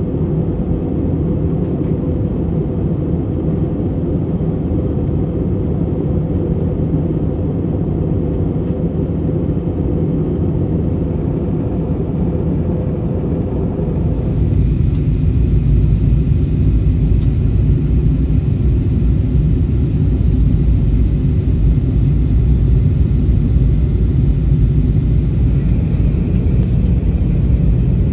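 Airbus A319-100 airliner in flight: a steady low rumble with a hiss above it. About halfway through the hiss drops away suddenly and the low rumble grows louder.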